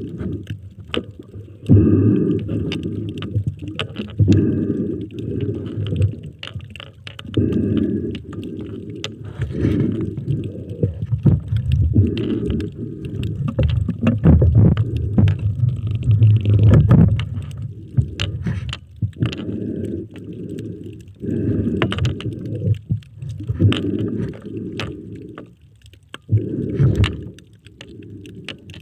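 Muffled underwater rumbling and gurgling of water around a camera held underwater by a swimming spearfisher. It comes in surges a second or two long with short lulls between them, and many small sharp clicks are scattered through it.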